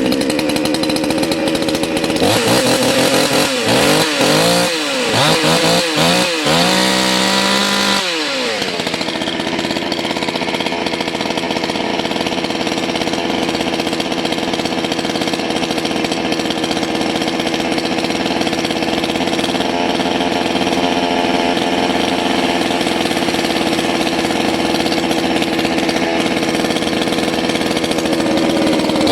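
Salem Master two-stroke chainsaw running: revved up and down several times, then about eight seconds in it drops to a steady idle that holds, with revving again at the very end. The saw is running while its low-idle carburetor screw is being retuned.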